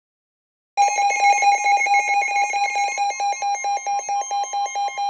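Electronic alert alarm starting suddenly just under a second in: a loud, rapidly pulsing beep of about five pulses a second, the alarm that announces an incoming severe weather warning on a weather radio.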